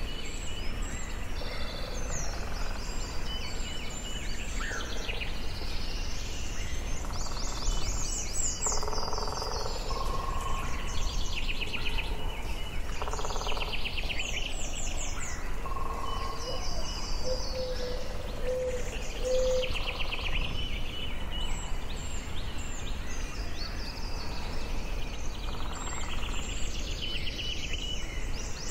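Forest ambience: several songbirds calling and singing in short trills and chirps, one after another, over a steady low rumble.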